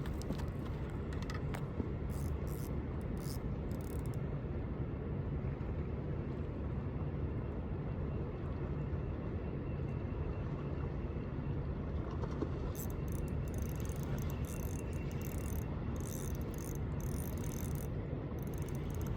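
Steady low rumble, with spells of fine rapid clicking from a fishing reel a few seconds in and again over the last several seconds, as a carp takes the bait and is hooked.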